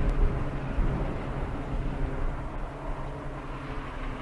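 PZL-130 Orlik trainer's turboprop engine and propeller droning steadily as the aircraft passes low on approach to land, a little louder in the first second and easing slightly after.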